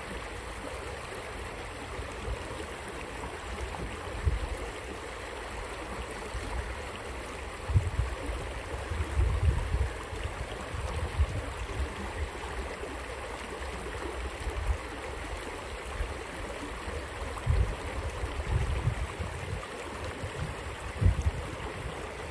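Steady rush of flowing stream water, with a few short low thumps on the microphone.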